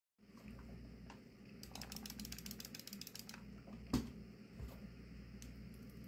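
Small plastic clicks from hands handling things at a keyboard: a quick, even run of clicks lasting about two seconds, then one sharp knock about four seconds in, the loudest sound, and a softer knock and a few stray clicks after it.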